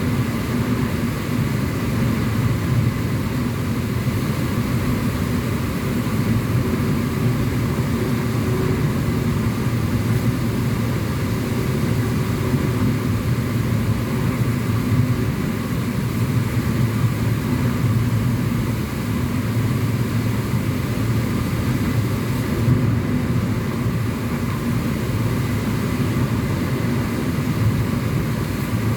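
Steady engine and road noise of a car cruising at an even speed, heard from inside the cabin.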